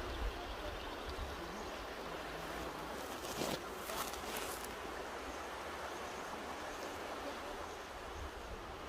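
Mountain river rushing steadily, with a short cluster of sharper sounds about three and a half seconds in.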